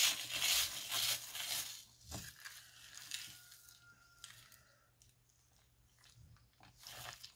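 Silicone spatula scraping and stirring a heap of small plastic beads and fine granules into slime glue in a bowl: a dense crunchy crackling for the first two seconds, then scattered softer crackles, with another burst near the end.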